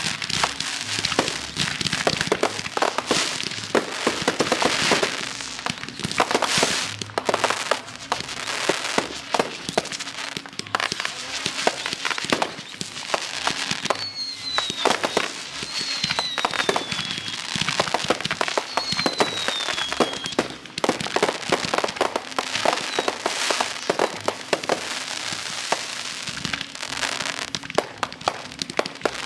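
Fireworks display: a rapid, unbroken run of bangs and crackling, with three whistling shells falling in pitch about halfway through.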